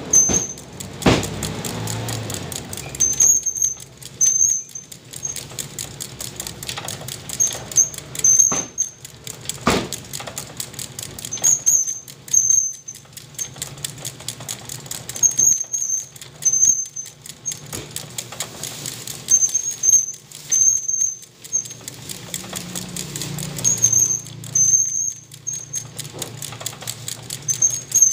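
A heavy cleaver chopping roast chicken on a wooden stump chopping block: a few sharp knocks in the first ten seconds, then the blade scraping and handling the pieces. Short high squeaky chirps come in little clusters throughout.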